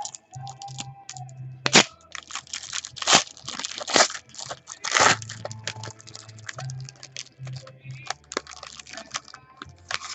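A trading-card pack wrapper being torn open and crinkled by hand, with the cards rustling as they are pulled out. It is a run of crisp crackles and tearing, loudest a little under two, three, four and five seconds in.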